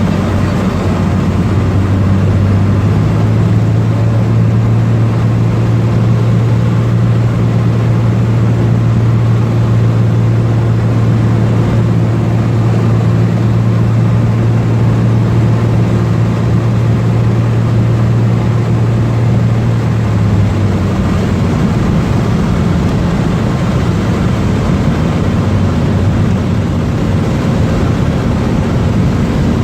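Cessna 206 single piston engine and propeller droning steadily with a low hum, its tone shifting about twenty seconds in as the power setting changes.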